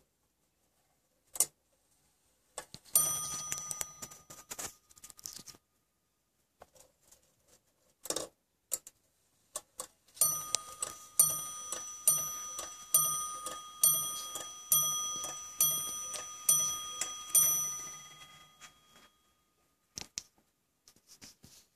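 Antique French two-train mantel clock striking on its bell. A few seconds in comes a single ringing stroke, as at the half hour. Later comes a run of about nine strokes roughly a second apart, counting the hour, each ringing on under the next, with a few sharp clicks from the movement before them.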